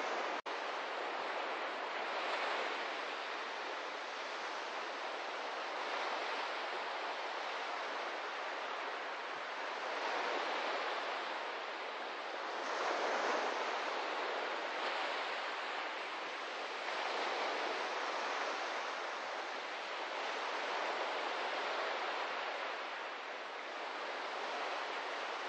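Small ocean waves washing onto a sandy beach: a steady hiss of surf that swells and eases every few seconds, with a split-second dropout just after the start.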